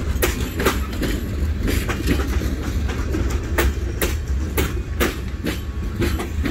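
Freight train of tank cars and covered hoppers passing at close range: a steady low rumble with sharp wheel clicks, about two a second.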